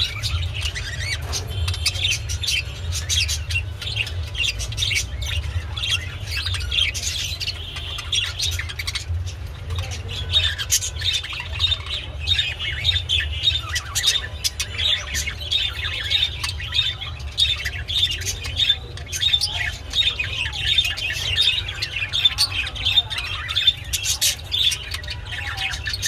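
Budgerigars chattering with a rapid run of squawks, chirps and warbles that grows busier about a third of the way through, over a steady low hum.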